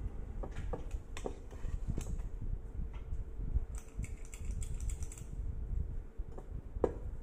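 Quick, light clicks and scrapes of a metal spring-release cookie scoop working cookie dough out of a stainless steel mixing bowl and onto parchment paper, with a little rustling of the paper.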